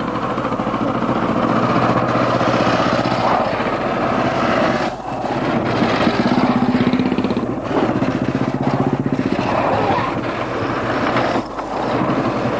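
Several Royal Enfield Bullet single-cylinder motorcycles running together as they ride up close. Their engines blend into one steady sound of rapid firing pulses.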